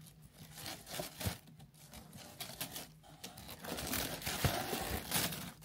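Honeycomb kraft paper wrapping crinkling and rustling as it is untied and peeled back by hand, getting louder and busier in the second half.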